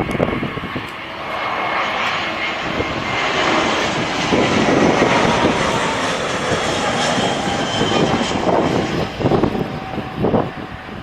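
Airbus A321 jet airliner passing close on its landing approach: the engine roar builds, peaks midway and eases off toward the end, with a faint high whine over it. Gusts of strong wind buffet the microphone.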